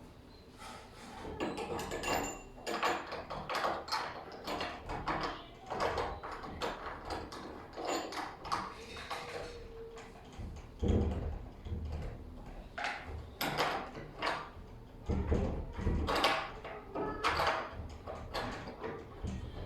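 Doorknob being refitted to a door: a run of small metallic clicks and rattles from the knob and latch parts, with a few heavier knocks against the door.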